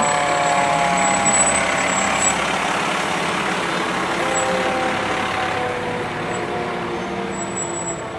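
A fire engine's diesel engine running as the truck drives slowly past close by. The engine's pitch drops slightly as it passes, and the sound fades gradually as it moves away.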